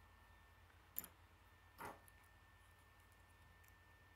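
Faint handling of plastic K'nex parts as gears are fitted onto a rod: one sharp plastic click about a second in, then a brief scrape, with a few tiny ticks after.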